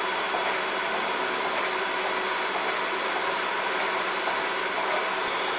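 Laser cutter at work cutting acrylic sheet: a steady rushing noise of its fans and air blowers, with a faint low hum underneath.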